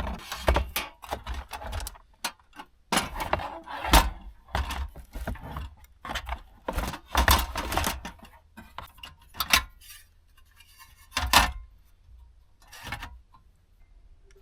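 Camp stove and cooking gear being handled and set up: an irregular run of clanks, rattles and knocks, busiest in the first eight seconds, with a heavier knock a little after eleven seconds.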